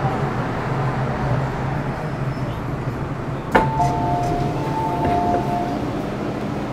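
MTR Metro-Cammell M-Train electric multiple unit with GEC GTO chopper control running in a tunnel: steady running noise with a low hum. About halfway through, a sharp knock, then two steady electronic beeping tones held for about two seconds.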